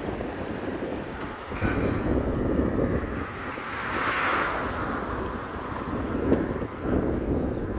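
Wind buffeting the microphone while riding a bicycle, a steady rumbling rush with a hiss that swells and fades about halfway through.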